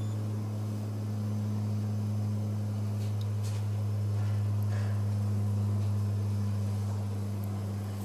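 Steady, loud low hum holding one pitch, with a fainter higher hum above it. It is the kind of unexplained sky hum that the uploader takes for a very loud airplane.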